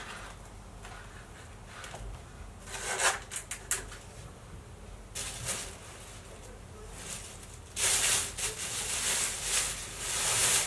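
Handling and rustling noises: a cardboard pizza box being opened and handled, with a few short rustles and clicks, then a plastic carrier bag rustling loudly for a couple of seconds near the end as a bottle is pulled from it.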